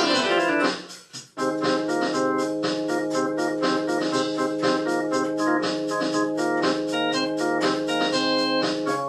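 Electronic organ music. A held chord gives way to a falling sweep, and the sound dips out briefly about a second in. Then sustained chords over a steady pulsing beat resume.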